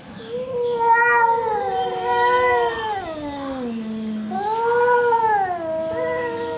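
Two cats yowling at each other in a fight standoff: long, drawn-out caterwauls that waver up and down in pitch. One voice slides down to a low growl-like moan around the middle, and both swell again about two-thirds through.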